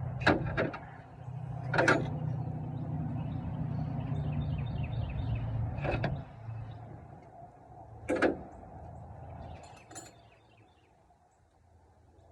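Sharp metal clicks and knocks of hand tools working at the truck's battery terminal, six or so spaced a second or more apart, over a low steady hum that fades out about halfway through.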